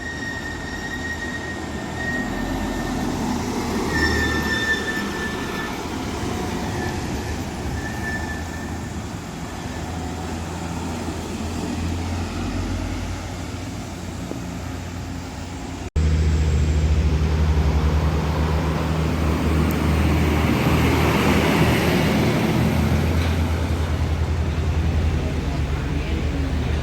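Heavy road vehicles running past with a steady low engine drone. After a cut about two-thirds of the way in, the drone is louder and a vehicle passes close, swelling and fading around the middle of that stretch.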